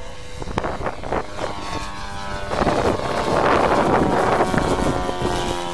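Engine and propeller of a radio-controlled Christen Eagle scale model biplane in flight, the engine note swelling as the plane passes close, loudest a little past the middle, then easing off.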